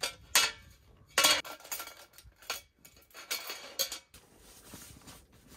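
Metal legs and frame of a small folding camp table clanking and clinking as it is handled and folded, about half a dozen sharp knocks over the first four seconds, then soft rustling.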